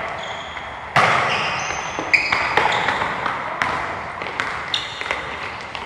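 Soccer ball being kicked and bouncing, a sharp thump about a second in and several lighter hits after, with short high squeaks of shoes on the floor.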